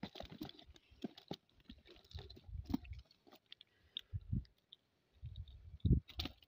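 Hands picking mullet out of a wet nylon cast net on mud: irregular small clicks and handling noises, with a few low, soft thumps.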